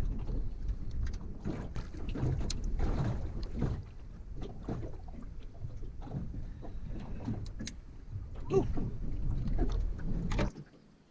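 Wind rumbling on the microphone aboard a small boat, with irregular knocks and clatter from handling; the rumble cuts off suddenly near the end.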